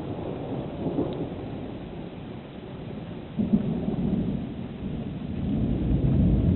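Thunder rumbling over steady rain, with a sudden louder peal about three and a half seconds in and the rumble swelling again near the end.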